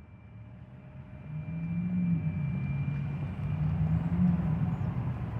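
Low rumble of city traffic, a vehicle engine hum among it, fading in over the first couple of seconds and then holding steady.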